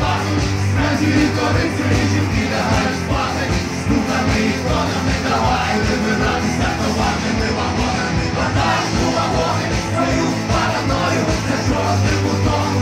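Live rock band playing a song at full volume, with drums and keyboard in a dense, continuous mix and a steady bass line underneath.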